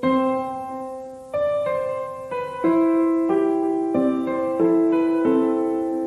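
Background piano music: slow, gentle notes struck one after another, each ringing on and fading before the next.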